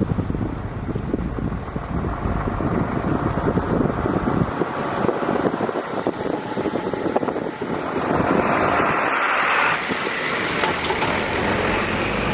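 E235-series electric train running past at close range, its wheels clattering on the rails, with a motor whine rising in pitch. The sound grows brighter and louder about eight seconds in.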